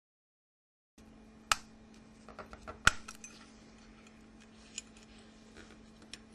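Small sharp clicks and ticks of a Nokia 6100 phone's plastic and metal parts being handled as the B cover is pulled outwards to unlock the shielding. There are two louder snaps about a second and a half and three seconds in, with lighter ticks between and after, over a faint steady hum. The first second is silent.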